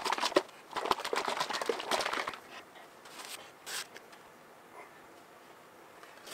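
Hands handling things on a workbench: about two seconds of dense crinkly rustling with quick clicks, then a couple of light taps.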